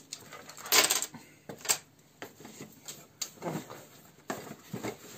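Small hard Christmas ornaments clicking and knocking together as they are handled and rummaged in a box, in a handful of separate clicks with the loudest clatter about a second in.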